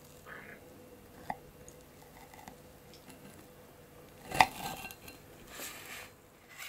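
Kitchen knife slicing down through a mousse cake with a biscuit crust, with soft scraping and crunching and light clicks of the blade on the marble board. The sharpest knock comes about four seconds in.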